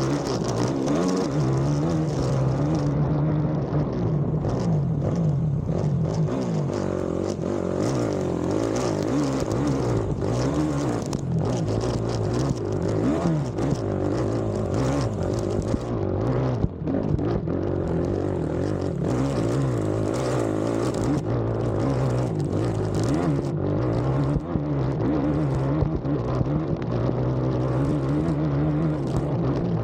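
Race ATV engine running hard onboard, revving up and down continuously as the throttle is worked over the track, with brief dips in pitch and level a couple of times.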